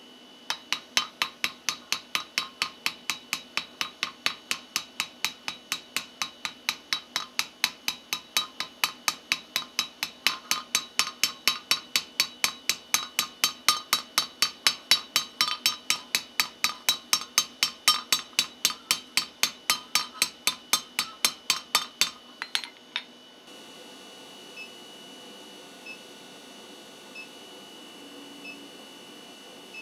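Hand hammer striking a red-hot steel tube held in a V-block on an anvil, forging a taper: a long even run of sharp blows, about three a second. The blows stop about 22 seconds in, and an induction forge runs with a steady high tone and faint regular ticks while it heats the tube.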